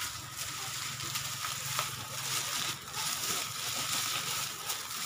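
Tamarind leaves and lemongrass rustling and crunching in a run of quick crackles as hands stuff and press them into a pig's belly cavity.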